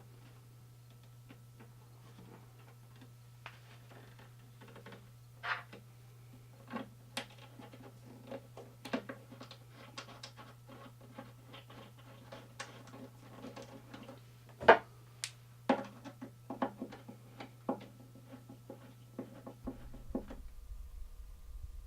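Irregular clicks, taps and knocks of hand work on a guitar amplifier's speakers and hardware, with one louder knock about fifteen seconds in. A steady low hum runs underneath and stops near the end.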